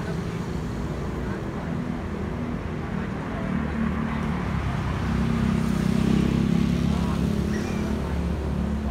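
Jet engine noise from a Boeing 737-800's twin CFM56-7B turbofans passing overhead: a low, steady drone that grows louder, is loudest about six seconds in, then eases slightly.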